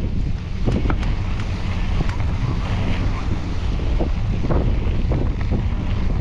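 Wind buffeting the microphone of a camera on a moving mountain bike, a loud steady low rumble, with irregular knocks and rattles from the bike riding over rough trail.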